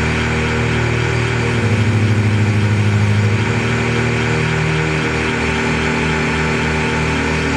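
Dark electronic drone from a live sound performance: a dense bed of held low tones and hiss. A louder low throb with a fast flutter swells up from about one and a half seconds in and fades by about three and a half seconds.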